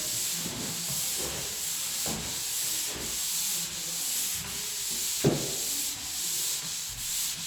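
Hand sanding of dried drywall joint compound in repeated back-and-forth strokes, a scratchy rasp swelling with each stroke about once a second, with one sharp knock about five seconds in.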